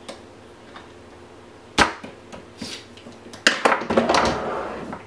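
A sharp click as the front takedown pin of an ICS M4 airsoft rifle is punched out with a small screwdriver. About three and a half seconds in comes a short clatter of clicks and scraping as the screwdriver is set down and the rifle's receiver is handled.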